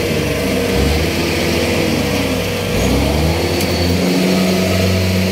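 Rice combine harvester's diesel engine running hard while the machine labours, stuck in deep paddy mud. Its pitch sags over about two seconds, then climbs back again.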